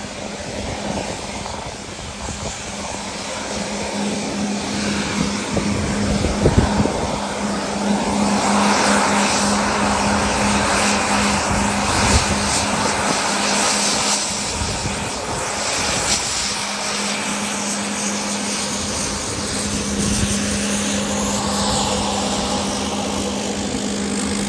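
Rockwell Commander 690's twin turboprop engines running at taxi power: a steady propeller drone over engine noise. It grows louder as the plane taxis close past, loudest about halfway through, then eases off a little.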